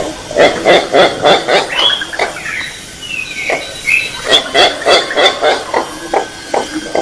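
White-breasted waterhen calling: two bouts of loud, rapidly repeated harsh calls, about three or four a second, with a few higher whistled, gliding notes in the pause between them.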